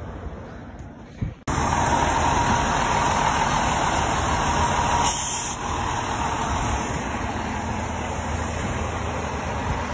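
Fire engine's diesel engine running close by, starting abruptly about a second and a half in, with a short burst of air hiss about five seconds in.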